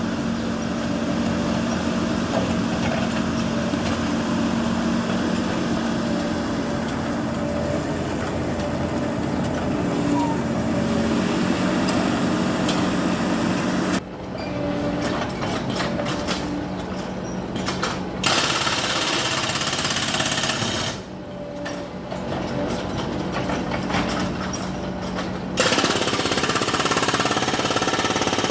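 Jackhammer breaking up concrete pavement: rapid, continuous hammering over a steady machine hum. The hammering eases twice for a few seconds, about halfway through and again about three quarters through.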